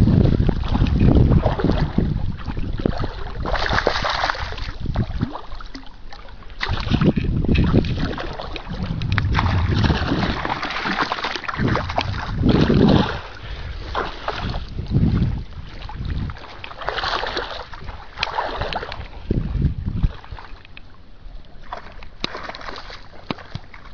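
Wind buffeting the camera microphone in uneven gusts, with water sloshing as someone wades through shallow water. It grows quieter in the last few seconds.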